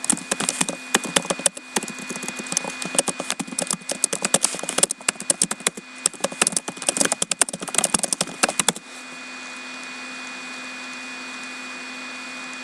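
Dense, irregular crackling and clicking that stops abruptly about nine seconds in, leaving a steady hum and hiss.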